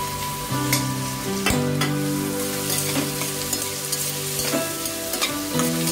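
Chopped onion, carrot, beans and peas sizzling in oil and ghee in a stainless-steel pressure cooker while being sautéed to soften. A metal spoon stirs them, with scattered clicks and scrapes against the pot.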